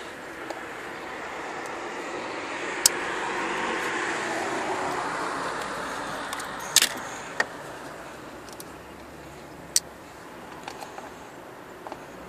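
A car passing by, its tyre and engine noise swelling and fading over several seconds, with a few sharp clicks from the spark plug leads being handled.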